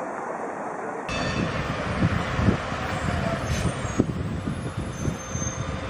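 Bus on the move: low engine and road rumble with irregular knocks and rattles. It gets noticeably louder about a second in.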